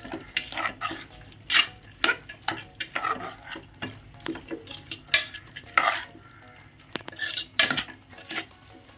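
Metal spoon clinking and scraping against a steel cooking pot in quick, irregular strokes while the food is mixed.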